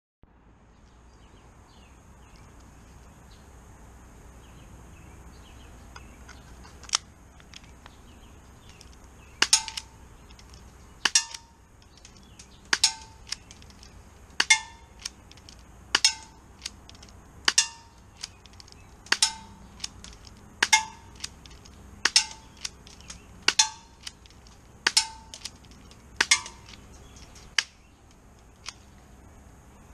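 Tokyo Marui Glock 26 gas blowback airsoft pistol firing about a dozen single shots, each a sharp crack with a short metallic ring, roughly a second and a half apart.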